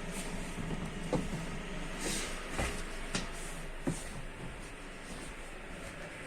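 Steady hum inside a passenger car of an ED160 Stadler Flirt3 electric multiple unit, with several short sharp knocks and clicks scattered through it.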